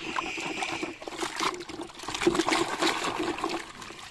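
A hand swishing plastic toy cars around in a basin of muddy water: irregular sloshing and splashing.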